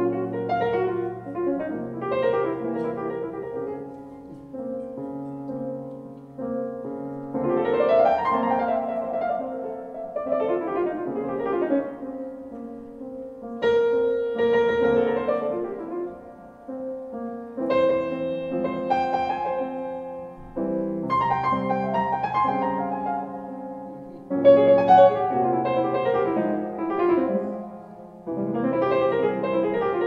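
Solo grand piano playing jazz: phrases of chords and runs that swell and ease off in waves every few seconds.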